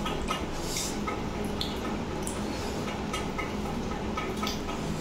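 Wet, squishy eating sounds: fingers mixing rice and chicken curry on a steel plate, with many short smacking clicks, over a steady low hum.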